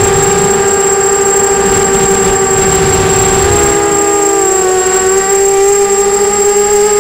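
Electric motors and propellers of a 250-size FPV quadcopter whining, heard through its onboard camera: a steady pitched whine with overtones that dips and wavers briefly about three and a half seconds in, then settles again, with a thin steady high tone above it.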